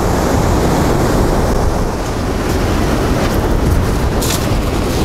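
Large storm waves on the Black Sea breaking and surging, a loud, steady rumbling wash, with wind buffeting the microphone and brief hisses in the second half.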